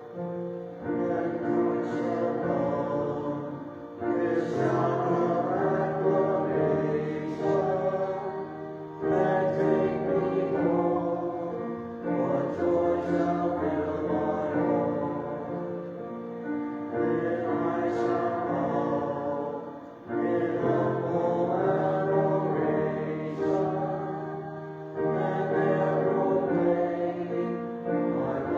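A choir singing a hymn in sustained phrases of a few seconds each, with short breaths between the phrases.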